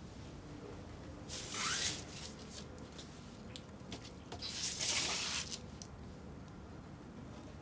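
Rustling of a cardboard LP sleeve being handled and a vinyl record sliding out of its paper sleeve: two short papery rustles a few seconds apart, the second a little longer.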